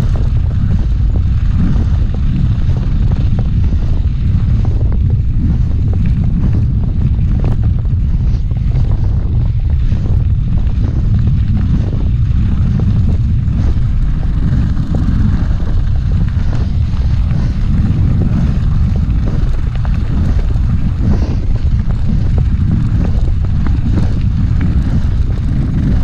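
Wind buffeting the microphone of a camera on a mountain bike riding fast over a gravel road: a loud, steady low rumble, with the tyres crunching and scattered small clicks from the gravel.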